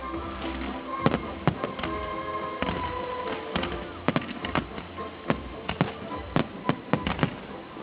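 Fireworks bursting in a string of sharp bangs, irregular at one or two a second, over music with held tones.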